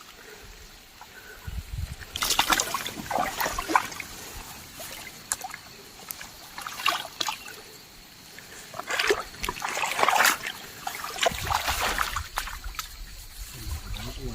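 Shallow paddy-field water splashing and sloshing in irregular bursts as people wade and grab for fish in it by hand.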